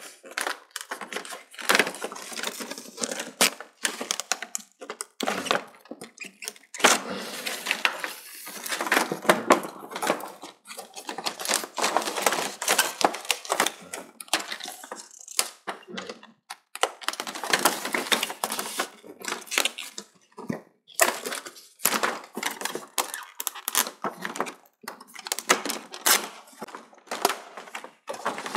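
Irregular clicks, knocks, crackles and scraping of hands working on a dismantled LED TV backlight: plastic and metal parts being pried, handled and set down.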